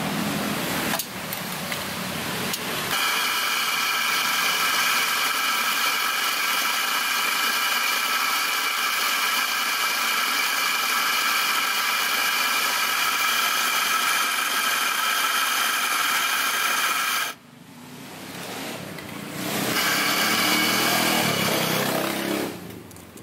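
Electric espresso grinder running steadily as it grinds coffee into a portafilter: a loud, even motor whine that starts about three seconds in and cuts off sharply about three-quarters of the way through. A few seconds of steady rushing noise follow.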